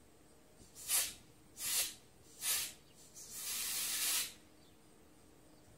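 Compressed-air blowgun hissing in short squirts into a boat speedometer's rubber pickup tube: three quick bursts, then a longer blast of about a second. The air pushes the speedometer needle up, a sign that the pickup line is clear.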